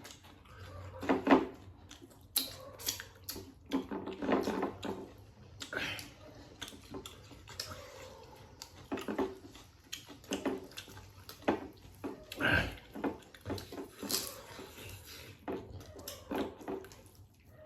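Close-up eating sounds of a meal: irregular chewing and smacking, with occasional knocks of dishes.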